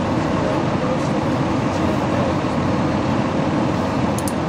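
A large diesel engine idling: a steady, loud, low rumble with no change in pace.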